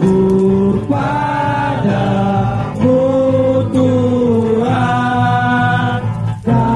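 Music: voices singing together in long held notes, each lasting about a second and moving from pitch to pitch.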